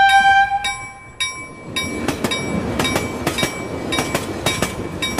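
Train sound effect: a steam-locomotive whistle blast that stops about half a second in, then the rhythmic clickety-clack of wheels over rail joints, the clicks coming in pairs over a rumble from about two seconds in.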